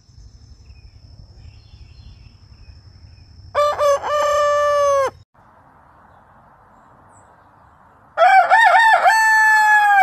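Roosters crowing: two crows from two different birds. A lower-pitched crow comes about three and a half seconds in, and a higher one near the end. Each opens with a few short broken notes and ends on a long held note.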